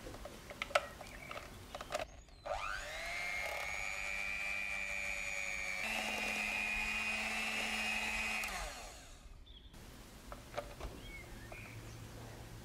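Electric hand mixer whipping chocolate cream in a glass jug: after a few clicks the motor starts with a rising whine and runs steadily, steps up to a higher speed about halfway through, then winds down and stops.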